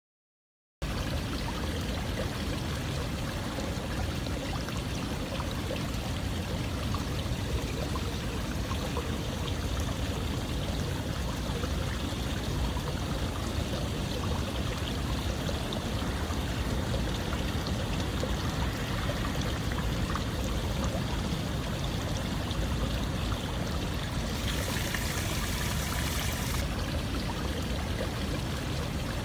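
Steady flowing water, a continuous rushing and trickling stream that cuts in suddenly after a moment of dead silence. For about two seconds near the end a brighter hiss rises over it.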